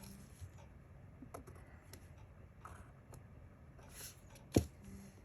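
Pencil and drafting tools working on paper: faint scratches and small taps, with one sharper click about four and a half seconds in.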